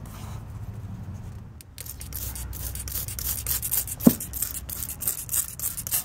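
Hand trigger spray bottle squirting Fluid Film undercoating onto a truck's front suspension: a quick run of short hissing sprays starting about two seconds in, with one brief squeak near the middle.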